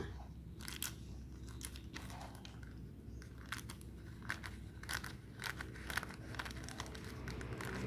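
Scissors, freshly sharpened on 1000-grit sandpaper, snipping into a thin clear plastic bag, with the plastic crinkling: faint, irregular snips and rustles. It is a sharpness test cut, and the blades are still not fully sharp.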